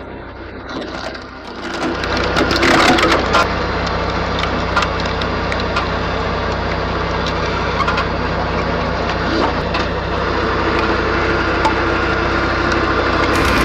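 Log splitter at work, its motor humming steadily, while wood cracks and splinters loudly as a log splits about two and a half seconds in, followed by scattered smaller cracks.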